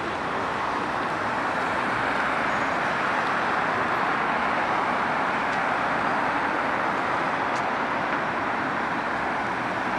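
Steady traffic noise from a busy multi-lane city road: the continuous rush of many cars' tyres and engines going by.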